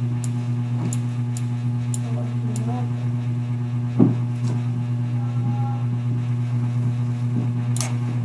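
Steady low electrical hum, with a few faint clicks and one louder knock about four seconds in.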